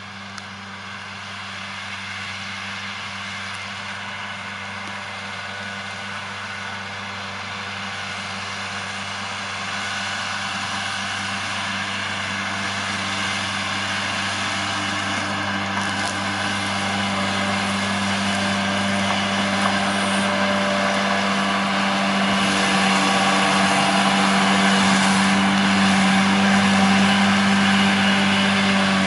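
John Deere 6145R tractor running under load while its Kuhn disc mower cuts grass. The engine and spinning mower make a steady mechanical hum that grows steadily louder as the tractor comes closer.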